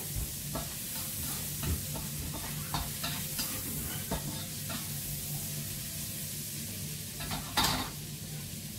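Food sizzling in a frying pan while it is stirred with a spatula, with frequent short scrapes and clicks of the utensil against the pan. A louder clatter comes near the end as the spatula is set down in the pan.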